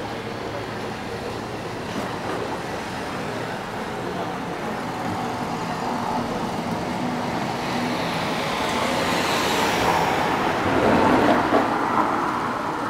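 Road traffic near a ferry quay: a vehicle passes close by, growing louder to a peak about ten to eleven seconds in and then fading, over a steady low engine hum.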